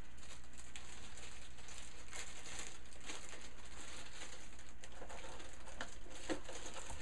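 Clear plastic bag crinkling and rustling as a microphone inside it is handled and packed into a small cardboard box, with a few faint knocks over a steady low hum.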